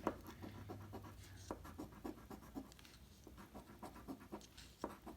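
Scratch-off lottery ticket being scratched: short, irregular, faint scraping strokes on the ticket's coating.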